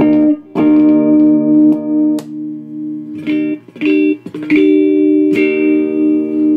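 Electric guitar played through a Behringer GMX212 modeling amp into an external speaker: chords strummed about six times and left to ring. No crackle or scratch comes from the contact-cleaned master volume pot as it is turned.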